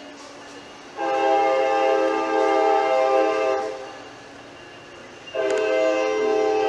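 Freight locomotive's air horn sounding two long blasts, each a chord of several steady tones, the second starting about a second and a half after the first ends. Between the blasts the train's cars roll by faintly.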